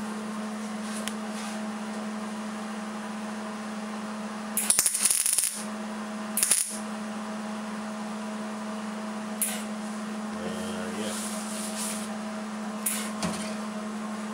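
Welding gun laying plug welds through the drilled holes of a patch on a sheet-steel truck door: about a second of welding arc, then a shorter one about a second later, over a steady hum. A few short ticks follow near the end.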